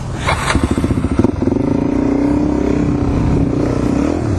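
Suzuki DR-Z400E single-cylinder four-stroke dirt bike engine running while riding, the revs climbing a little to a steady note and easing off near the end. A brief rattle about half a second in.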